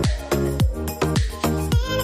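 Background music with a steady electronic dance beat, a drum hit about two and a half times a second.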